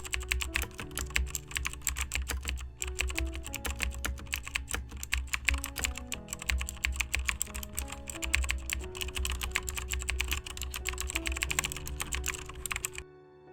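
Rapid, continuous computer-keyboard typing over soft background music; the clicking stops suddenly near the end, leaving only the music.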